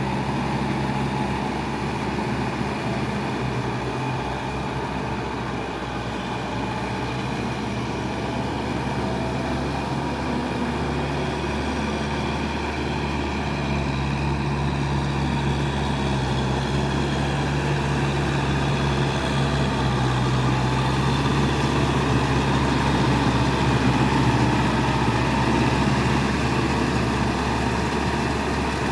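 Kubota tractor's diesel engine running steadily at working revs while harrowing, growing a little louder in the second half.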